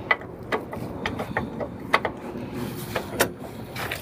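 Ratchet wrench clicking in short, irregular strokes while loosening a truck's bumper-mount bolt, about ten sharp clicks with the loudest about two seconds in and just after three seconds.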